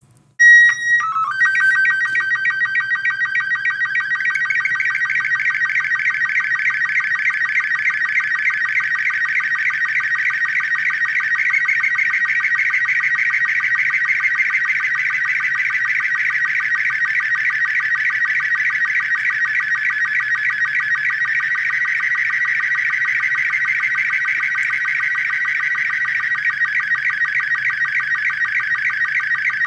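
Slow-scan television (SSTV) picture signal played from a smartphone speaker. About half a second in, a brief header of a few steady beeps plays, then a continuous warbling, chirping tone with a fast, even pulse as the image is sent line by line.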